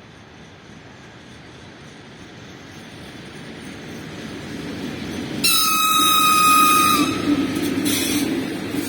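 VL11 electric locomotive approaching, its rumble growing steadily louder, then its high-pitched whistle sounding for about a second and a half, followed by a short high burst.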